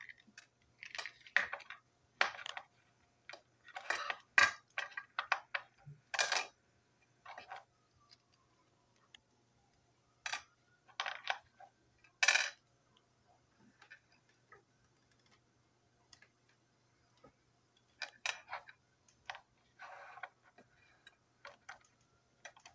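Small plastic toy train parts being handled and taken apart by hand: irregular clicks, taps and short scrapes as the pieces are pried loose and set down on a hard tabletop.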